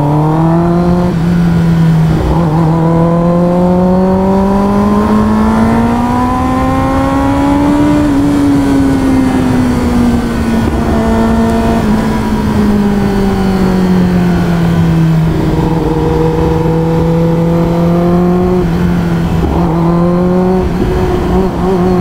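Kawasaki ZX-10R's inline-four engine running under way, heard from on the bike. Its pitch climbs quickly at first with a short break for a gear change about two seconds in, rises slowly for several seconds, then eases off and holds fairly steady.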